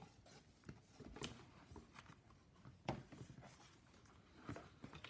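Faint rustles and a few soft taps of a picture book being handled as its page is turned.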